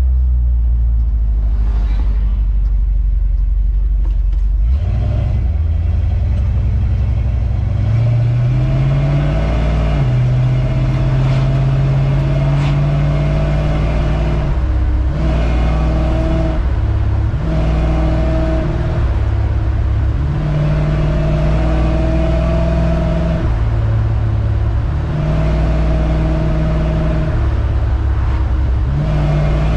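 1970 Dodge D100's 383 big-block V8 driving under way. It picks up about five seconds in with a rising note, then its pitch steps up and down every couple of seconds as the truck accelerates and the three-speed automatic shifts.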